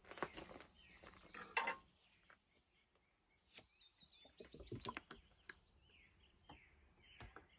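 Faint handling knocks and clicks of a plastic oil bottle and funnel at a lawn mower's oil filler, the sharpest knock about one and a half seconds in. A small bird chirps repeatedly in the background from about three seconds in.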